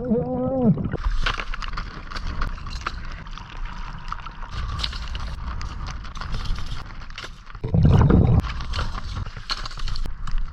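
Underwater sound of a scuba diver: a steady low rumble with scattered clicks and rattles, a short wavering tone at the very start, and a loud burst of exhaled regulator bubbles about eight seconds in.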